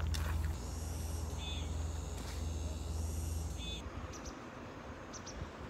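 Crickets and other insects trilling steadily in the evening, with a few short chirps, over a low rumble. About four seconds in, the rumble and much of the trilling drop away, leaving a quieter background with a few faint chirps.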